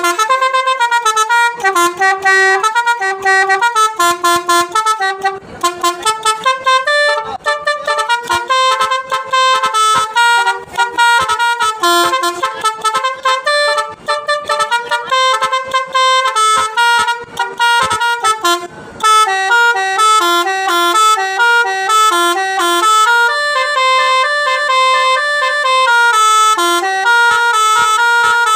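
Bus-mounted Basuri telolet horn, a multi-trumpet musical air horn, playing a fast tune of short stepping notes. About two-thirds of the way through it breaks off briefly and goes into a different tune.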